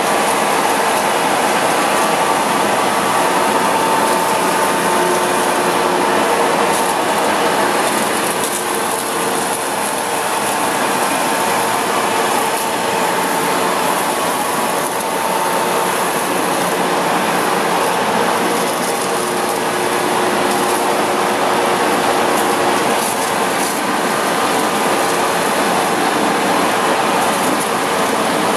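Blanchard #27-48 vertical-spindle rotary surface grinder running under power, a loud steady mechanical noise with a faint held whine, with coolant splashing into its tank.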